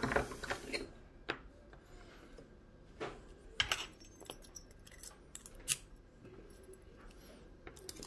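Scattered small metallic clicks and taps from handling a brass padlock core with its key and a follower rod, a sharp click every second or so and the loudest about two-thirds of the way through.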